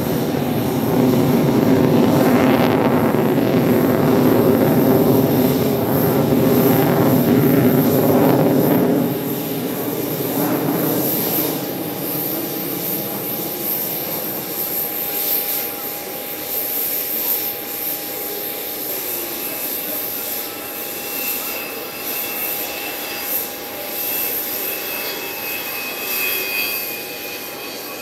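Su-30MKM fighter's twin AL-31FP turbofan engines running loud overhead during a display pass. About nine seconds in the sound drops off, and it fades to a distant rumble as the jet moves away.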